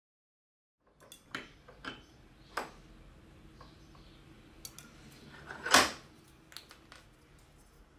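Metal clinks and knocks as a steel M12 bolt is handled in a steel bench vise and a steel ruler is laid against it, starting about a second in. A handful of separate taps, with one louder clank about three-quarters of the way through.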